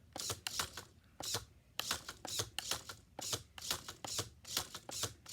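Fantastic Gymnastics toy clicking as its buttons are worked: a run of sharp plastic clicks, about three a second, somewhat irregular.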